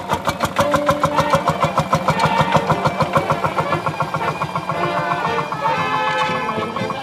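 Old tractor engine passing at walking pace, chugging in rapid even beats that weaken after about five seconds, with music playing over it.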